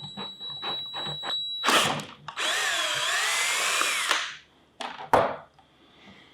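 Power drill running for about two seconds, boring a hole through a pipe end cap with a large bit, its motor pitch wavering under the load. A few short knocks and clicks come before it, and a sharp click follows.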